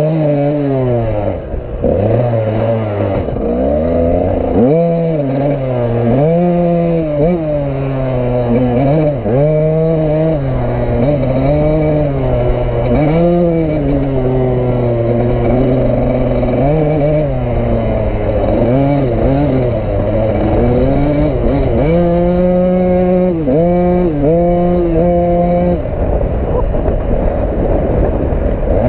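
KTM EXC two-stroke dirt bike engine revving hard under riding, its pitch climbing and dropping back over and over, with a few short, quick stabs of throttle about three quarters of the way through.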